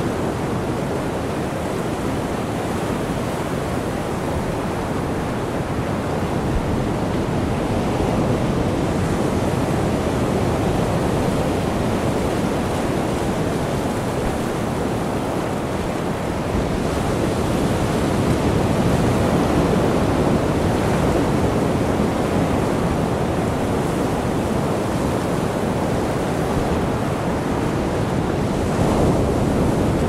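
Ocean surf: a steady rush of waves that swells a little about every ten seconds.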